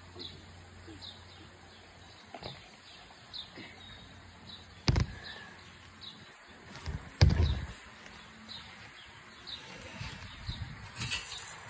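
A bird repeating a short falling chirp over and over, a little under a second apart. Two loud thumps about five and seven seconds in, and a brief hiss near the end.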